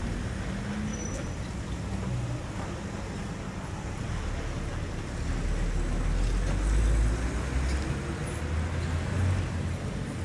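Road traffic: a steady low engine rumble that swells as a vehicle passes, loudest about seven seconds in.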